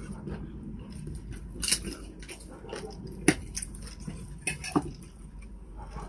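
Eating at a table: chewing, with a few short clicks and knocks of plates and cutlery, the sharpest a little over three seconds in.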